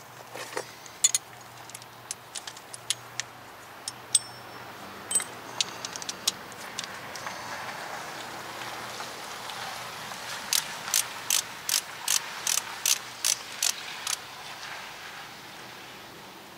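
Ratchet head of a torque wrench clicking as the caliper bracket bolts are run down snug: a few scattered clicks, then from about ten seconds in a steady run of clicks, roughly three a second, that stops near the end.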